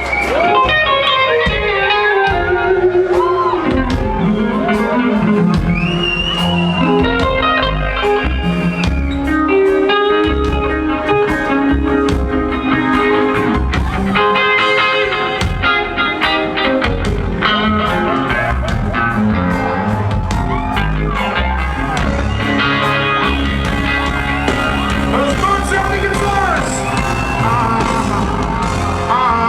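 Live reggae band playing: an electric guitar solo with bending notes over bass and drums.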